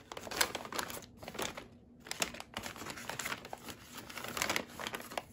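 Plastic packaging crinkling and rustling in irregular crackles as a plastic food pouch and a zip-top bag are pushed into a plastic tote bag, with a brief quieter spell about a second in.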